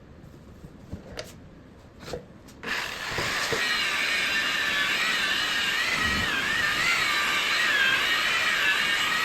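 A few light knocks, then about three seconds in an electric buffer starts and runs with a wool pad on the boat's gelcoat, its motor whine wavering up and down in pitch as the pad is worked over the compound.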